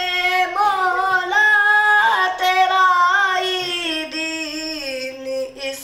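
A boy singing a naat solo and unaccompanied into a microphone: long held notes that waver and bend, sliding lower in pitch toward the end.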